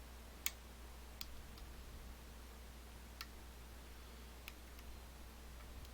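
Faint, scattered metallic ticks of lock picks working inside a DOM ix TwinStar dimple lock held under tension, about five clicks spaced unevenly, the sharpest about half a second in.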